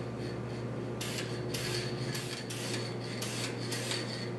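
Aerosol can of spray polyurethane hissing in short, rapid bursts, about two or three a second, starting about a second in, as a clear gloss coat goes onto a fishing rod. A steady low hum runs underneath.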